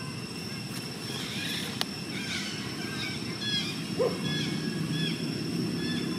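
Forest ambience: a bird gives short, repeated chirps about twice a second over a steady low rumble and a constant high-pitched tone. There is a single sharp click near the start and a brief squeak about four seconds in.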